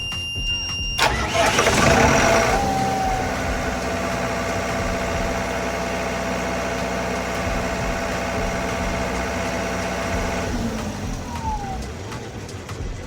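A brief high tone, then the John Deere diesel engine of a Kohler portable generator is cranked and starts about a second in. It runs steadily for about eight seconds, then is shut down and winds down with a falling pitch.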